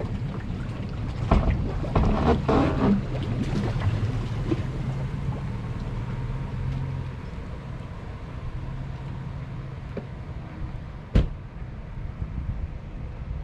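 A small fibreglass boat floating off its trailer at a launch ramp. Knocks and clatter sound from the hull in the first few seconds, then water washes along the hull under a steady low hum. One sharp knock comes about eleven seconds in.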